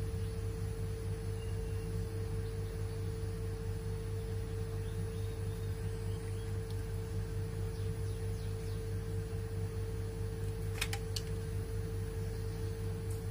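A steady low hum with a held tone. Near the end come two sharp metallic clicks about a third of a second apart, from the steel jaws of aviation snips being worked.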